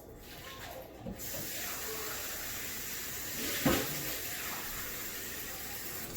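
Water running into a sink, a steady hiss that starts about a second in, with a single knock partway through.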